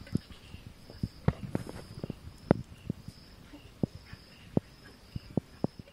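Irregular soft taps, knocks and rustles close to the microphone as a baby vervet monkey moves about and handles grass stalks beside the camera, with a faint insect chirp repeating about twice a second in the background.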